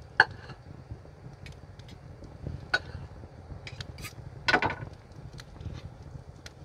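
Cutlery clinking against plates, with three sharper clinks (near the start, near the middle and a quick cluster about two-thirds through) and lighter ticks between them, over a low steady rumble.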